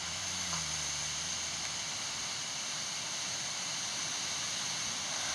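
A man's snoring played back from a phone sleep-tracking app's recording under steady hiss: one low, drawn-out snore in the first two seconds, then only hiss until the next snore begins at the very end. The snorer has sleep apnea.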